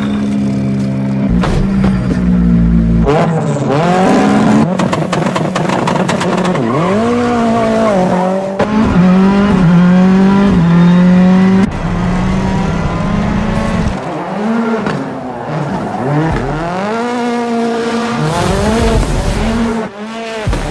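Ford rally car's engine at high revs, its pitch repeatedly rising and falling back as it is revved and shifted while the car slides, with tyres squealing.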